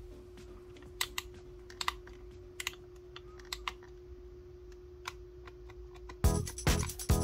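A handful of light, sharp clicks over a faint steady hum, then music starts loudly about six seconds in.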